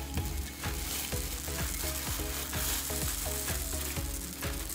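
Polystyrene foam beads poured from a plastic bag into a tub of white glue, a steady dry crackling rustle of the bag and tumbling beads. Background music with a steady beat plays under it.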